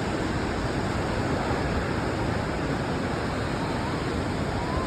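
Waterfall in monsoon flow: a steady, even rush of falling water.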